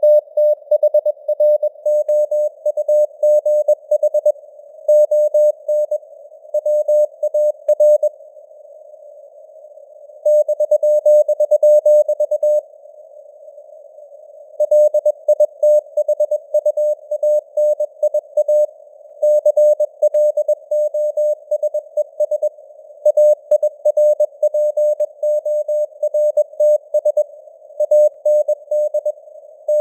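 Morse code sent at 21 words per minute: a single tone of about 600 Hz keyed on and off in dots and dashes, over a narrow band of hiss from simulated radio noise. The keying stops for about two seconds twice in the first half.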